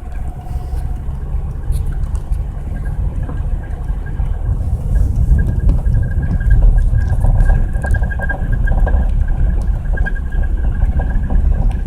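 Honda Passport 4x4 driving through snow: a steady low rumble of engine and tyres that grows louder about five seconds in, with a faint steady high whine over it.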